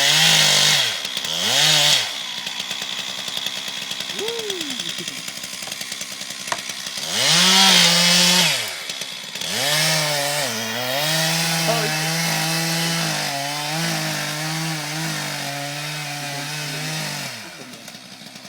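Chainsaw revving in short bursts, then held at a steady working speed while cutting into the trunk of a tree being felled, for about seven seconds before the revs drop away near the end.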